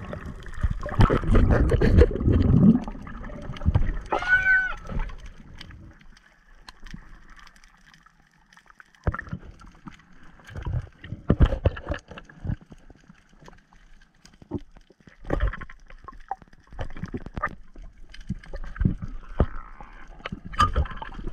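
Underwater sound through a diving camera: loud rushing and bubbling of water in the first few seconds, then quieter stretches broken by scattered knocks and bumps. A brief high-pitched squeal comes about four seconds in, from the diver equalizing his ears by pinching his nose and blowing.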